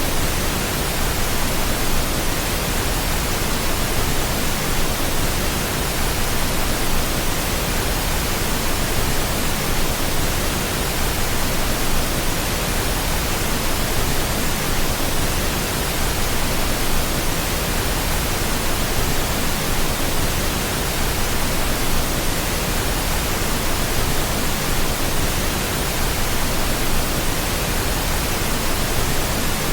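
Steady pink noise: an even, unbroken hiss spread across the whole range, with no changes.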